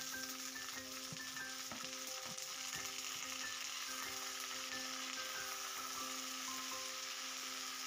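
Chopped kailan (Chinese kale) sizzling in hot oil in a wok as it is stir-fried with a spatula: a steady frying hiss.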